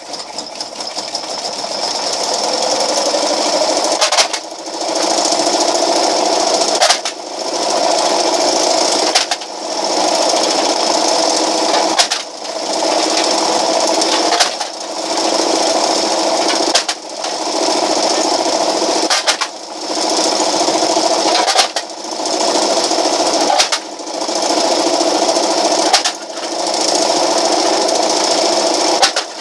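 Homemade pop can crusher running: an electric motor belt-drives four solid wheels through a 7-inch pulley, and its whir rises over the first few seconds to a steady running sound. About every two and a half seconds the sound dips sharply with a crunch and climbs back, as cans are drawn between the wheels and crushed.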